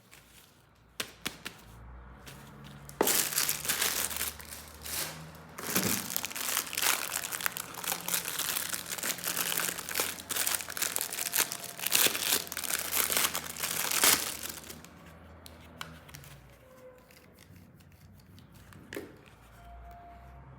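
Packaging crinkling and tearing as toy parts are unwrapped, a dense crackle running from about three seconds in to about fourteen seconds, with a few light clicks before and after.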